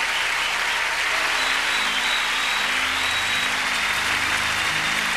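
Large audience applauding steadily, with soft sustained low musical notes entering under it about three seconds in.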